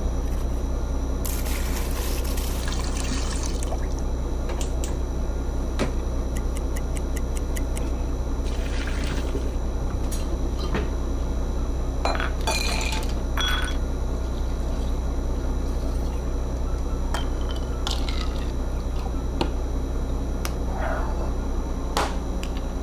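Liquid being poured and sloshed, with scattered clinks of glass or dishes, over a steady low hum.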